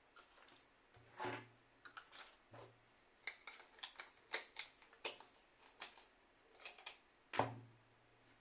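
Parts of a disassembled radiator thermostat being handled on a work surface: a run of small clicks and taps, with one louder knock about seven seconds in.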